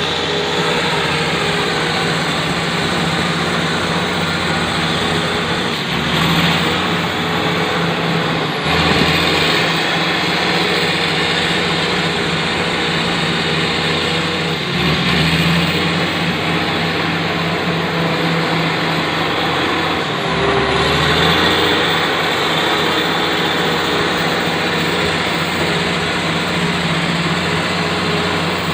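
Komatsu D85ESS bulldozer's diesel engine running steadily, its note dipping and then swelling four times as it takes load.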